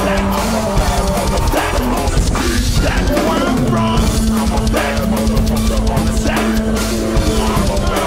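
Heavy rock music in a metal style, with a drum kit keeping a steady beat under sustained instrument tones.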